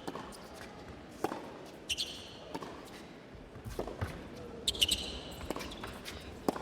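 Tennis rally on an indoor court: the ball is struck and bounces about once a second, with shoe squeaks on the court surface twice.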